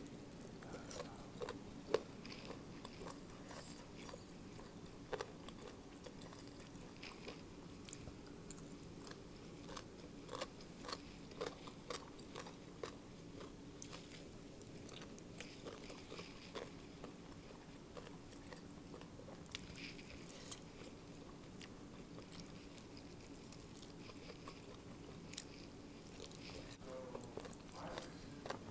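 A person eating crisp food close to the microphone: irregular crunching bites and chewing, with scattered small clicks.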